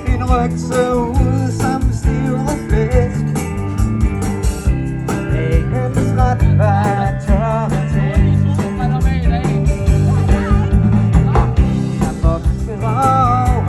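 Live band playing a rock song: a singer over electric guitar, with a steady bass line and a drum beat running throughout.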